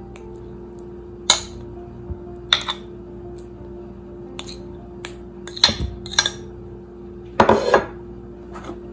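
A metal fork clinking and scraping against a ceramic plate as chunks of chilled butter are pushed off it into a bowl of flour. There are several separate sharp clinks, with a longer run of scraping clinks near the end.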